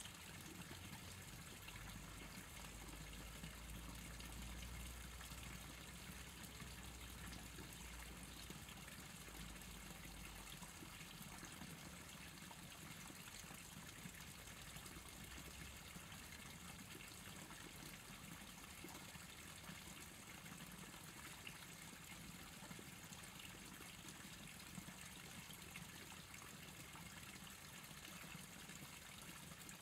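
Faint, steady outdoor ambience of a wooded urban stream ravine: an even hiss with no distinct calls, and a low rumble that fades out about ten seconds in.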